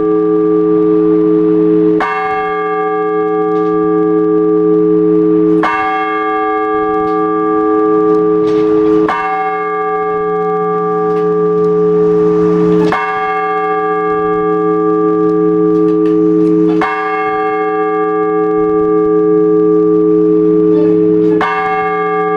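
A single Orthodox church bell tolled slowly and evenly, six strikes about four seconds apart, each ringing on until the next: ringing that calls the faithful to the all-night vigil.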